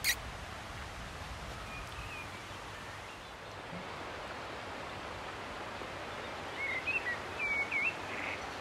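Steady outdoor background hiss, with a few short, high bird chirps near the end.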